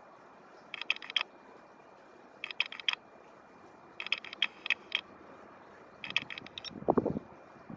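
Short bursts of rapid mechanical clicking, four or five clicks to a burst, repeating about every one and a half seconds, with a single low thud near the end.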